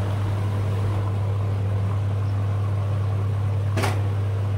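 A loud, steady low hum with no change in pitch, and a single sharp click near the end.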